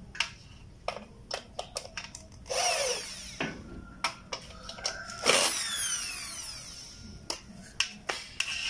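Corded electric drill driving screws through an A-shaped friction-stay hinge into an aluminium window frame in two short runs. The second run is longer and falls in pitch as it winds down. Scattered clicks and taps come between the runs.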